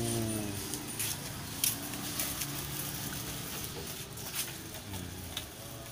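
Quiet shop background: a brief voice at the start, faint voices of shoppers, and a few light clicks and rustles of goods being handled.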